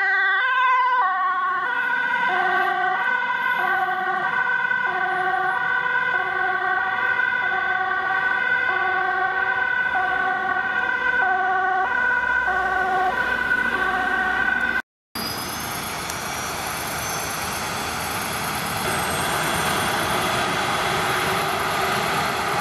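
Dutch ambulance two-tone siren, switching between high and low notes about twice a second. About fifteen seconds in it cuts off abruptly to the roar of a helicopter with a thin whine rising in pitch, typical of the turbine spooling up before departure.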